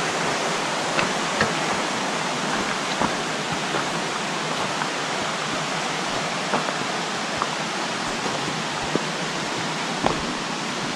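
Creek water rushing over rocks, a steady, even hiss, with a few faint, irregular clicks of footsteps on loose river stones.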